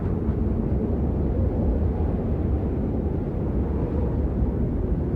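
Steady low rumble of wind buffeting the microphone, with no gusts or breaks.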